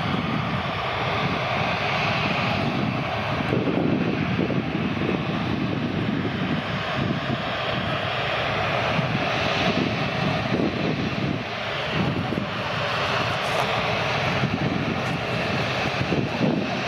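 Airbus A380-800's four turbofan jet engines running at low power as the airliner rolls slowly on the ground, a steady dense rumble and whine.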